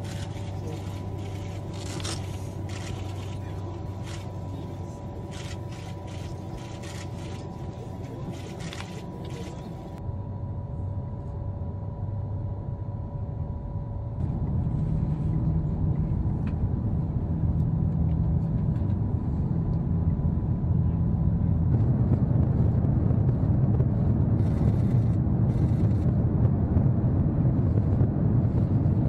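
Cabin noise of a Japanese maglev train accelerating at high speed: a steady rumble with a steady whine over it at first, growing louder as the train climbs past 500 km/h.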